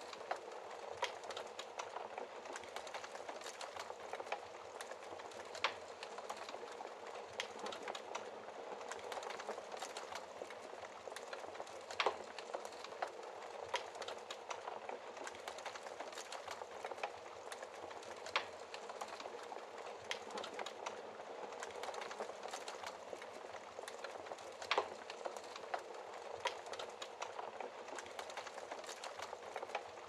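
Wood fire burning in an open fireplace, crackling with a steady hiss and fine ticks, and a sharper, louder pop every few seconds.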